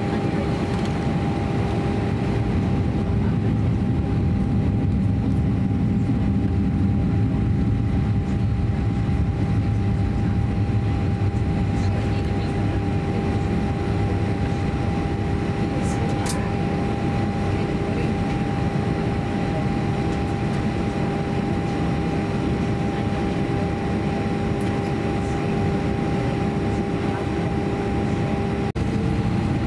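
Airbus A320 cabin noise while taxiing: a steady low rumble of engines and air-conditioning with a constant hum tone over it. Near the end the sound drops out for an instant and the hum shifts slightly in pitch.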